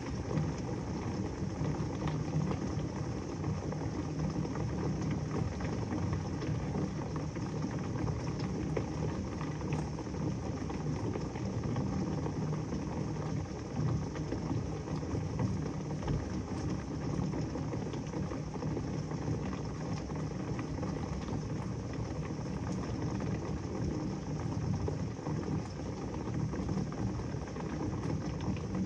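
Heavy rain falling steadily, a dense hiss of drops with fine pattering ticks throughout.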